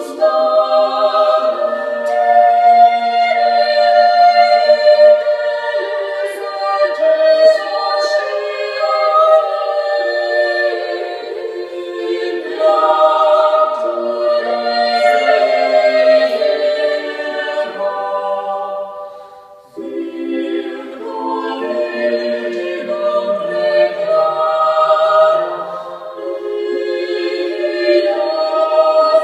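Unaccompanied choir singing Renaissance sacred polyphony in long, overlapping held notes, played back over B&W 685 S2 bookshelf speakers. About two-thirds of the way through the voices break off briefly, then come back in with lower parts joining.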